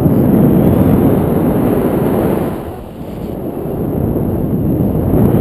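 Strong wind buffeting the microphone of a selfie-stick camera on a tandem paraglider in flight, a loud rumbling rush that eases for a moment about halfway through.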